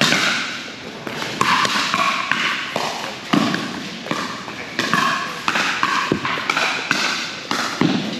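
Pickleball rally: paddles striking the hard plastic ball back and forth in a quick exchange, a dozen or so sharp pops about every half second to second, each trailing off in a short echo.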